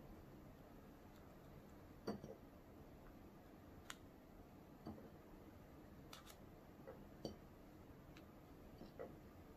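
Near silence, broken by a handful of faint, irregular clicks and taps as fingers handle soft candy fries and a small paper fry carton over a ceramic dish.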